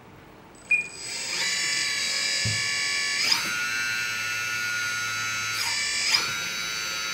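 A LESU 1/14 MAN 8x8 RC truck's hydraulic pump starts with a click and whines steadily at a high pitch as the crane boom is raised. The pitch dips briefly and recovers twice as the crane's control valves are worked.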